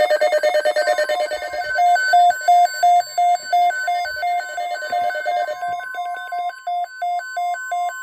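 Several NOAA weather radio receivers sounding their alert alarms: fast repeated beeps, about three a second, over the steady NOAA Weather Radio warning alarm tone, which comes in about a second in.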